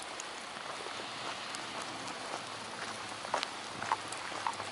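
Steady rain falling on pavement, an even hiss with scattered sharp ticks of single drops.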